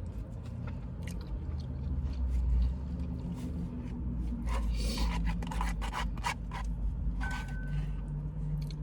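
A disposable fork scraping and picking at poutine in a takeout container, with chewing, over a steady low rumble. The scraping clicks bunch up in the middle.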